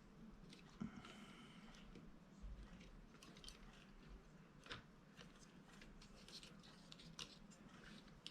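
Near silence with faint scattered clicks and light scrapes of small plastic and metal parts being handled, as the Nintendo Switch's inner top tray is fitted back into the console.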